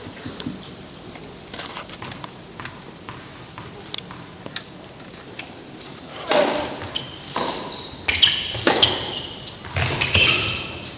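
Tennis ball bounced a few times on an indoor hard court before a serve, then the serve struck about six seconds in and a rally follows: sharp racket hits on the ball and squeaks of tennis shoes on the court, echoing in the arena.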